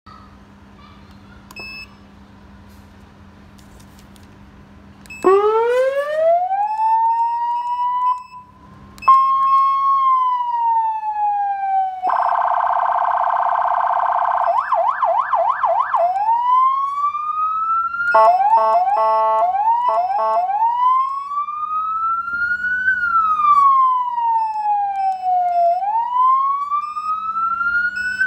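Black Falcon 100W electronic siren amplifier cycling through its siren tones. After a low hum, a wail rises about five seconds in. Then come a steady buzzing tone, a fast yelp, a two-tone alternating pattern, and a slow wail rising and falling.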